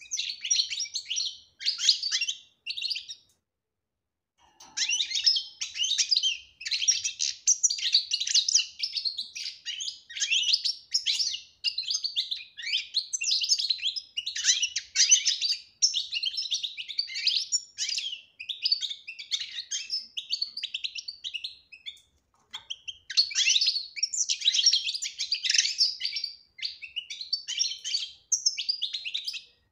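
European goldfinch singing its fast twittering song in long, unbroken runs, pausing briefly about three seconds in and again after about twenty seconds.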